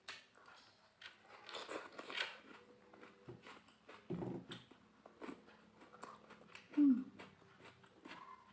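Close-miked eating sounds: biting into and chewing raw tomato, with wet mouth noises and small clicks. A short hum comes about seven seconds in.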